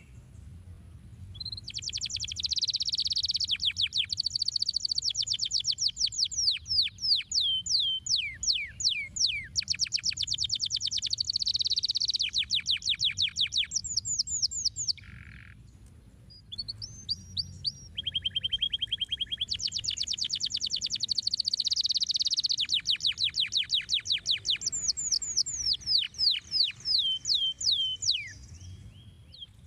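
Domestic canary singing two long song phrases of fast rolling trills and quick downward-sweeping whistled notes, with a brief pause between them about halfway through.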